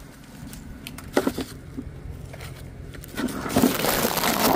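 Handling noise as a plastic mailer bag and the phone are moved about: a few knocks about a second in, then a louder stretch of rustling and crinkling from about three seconds in.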